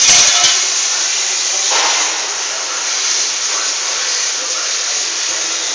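A brief knock at the start, then a loud steady hiss.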